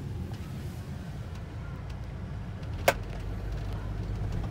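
Steady low rumble of a moving taxi heard from inside the passenger cabin, with a single sharp click about three seconds in.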